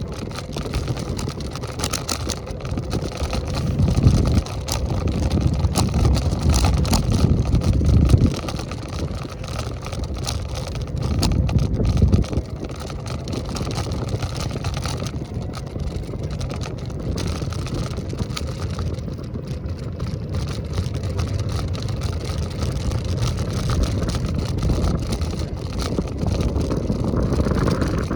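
Wind rumbling on the microphone and wheel noise from a moving electric scooter, with heavier rumbles from about four to eight seconds in and again around twelve seconds.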